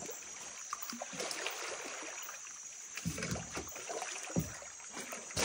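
Water sloshing and splashing against a canoe, with a few irregular soft knocks, under a steady high hum.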